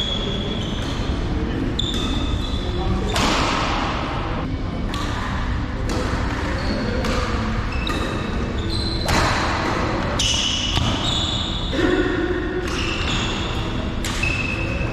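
Badminton doubles rally in a large echoing hall: rackets striking the shuttlecock and feet thudding on the court, with short high squeaks from players' shoes, over a steady low background noise.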